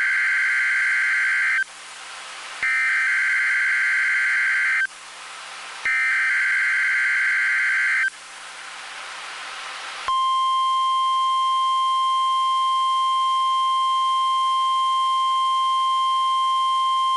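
NOAA Weather Radio Required Weekly Test alert signal. It opens with three short bursts of warbling SAME digital header data tones, each about two seconds long, with radio hiss in the pauses between them. About ten seconds in, the steady single-pitched 1050 Hz warning alarm tone starts and holds.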